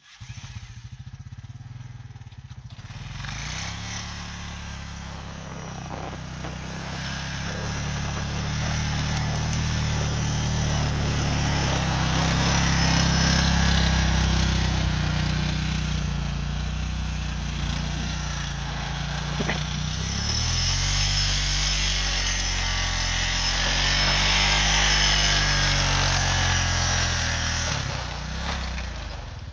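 ATV engine running under load as it tows a round hay bale on a bale unroller through snow. It grows louder as the machine passes close by, and its pitch rises about two-thirds of the way through.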